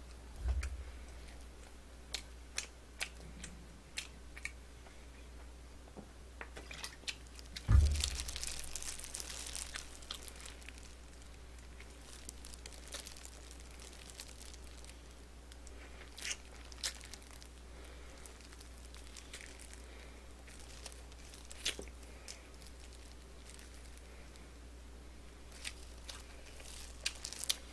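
Close-miked eating: a plastic food glove crinkling as food is handled, chewing, and scattered small clicks, with two dull thumps, about half a second in and about eight seconds in. A steady low hum runs underneath.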